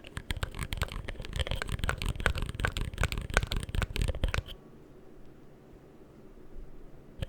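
Rapid, dense scratching and clicking right up against the microphone, typical of ASMR brushing or handling triggers. It stops about four and a half seconds in, leaving only a faint low hum.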